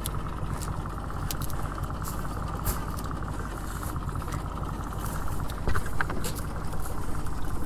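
Boat motor running steadily at low speed, with scattered light clicks and rattles as a cast net is handled and cleared by hand.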